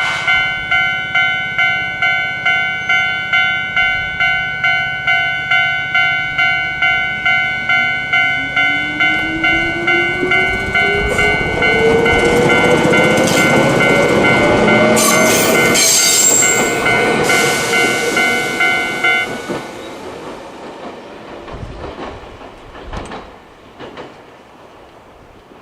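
Japanese level-crossing alarm of the old standard electronic type, pulsing about one and a half times a second in several clashing tones that sound dissonant and eerie. It is the sign of an ageing alarm that has been slipping into a single tone. From about 9 s a train passes through the crossing with a rising motor whine and wheel clatter. The alarm stops about 19 s in, and the train noise fades into wind on the microphone.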